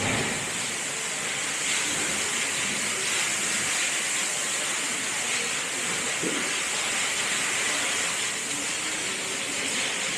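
Steady high hiss, with a brief knock about six seconds in.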